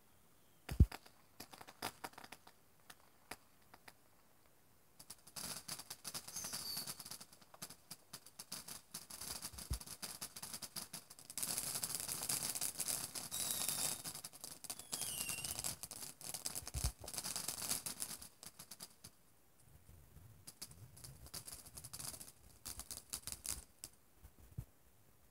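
Ground fountain firework crackling as it sprays sparks, in dense spells of sharp crackles that grow strongest in the middle and die away near the end. A few separate bangs stand out, the loudest about a second in and two more near the middle.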